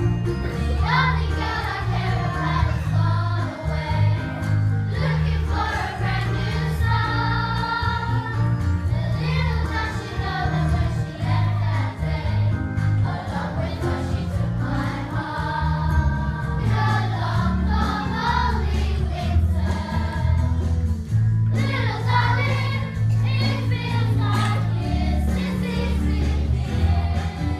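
Primary school children's choir singing together, over an instrumental accompaniment with held bass notes that change every second or so.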